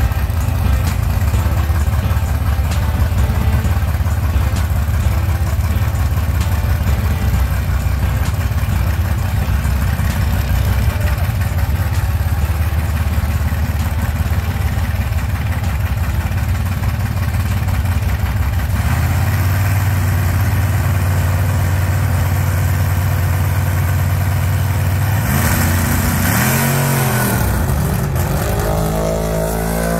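Drag-race car engines idling loud and steady at the starting line. About 25 seconds in, an engine is revved up and back down a couple of times, and near the end the engines climb in pitch as the cars launch.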